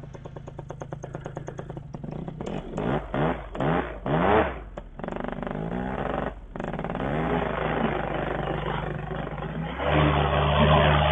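Paramotor's two-stroke engine idling with a fast even pulse, then revved up and down several times, settling into a steady run that gets louder near the end.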